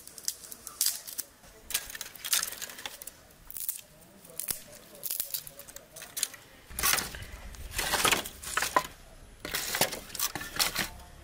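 Dry twigs snapped by hand, a run of sharp, irregular cracks. Later, dry twigs and sticks rustle and knock against brick as they are laid into a small brick fire hearth.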